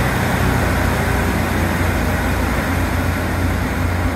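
Northern diesel multiple unit pulling away from the platform, its underfloor diesel engines giving a steady low drone as it departs.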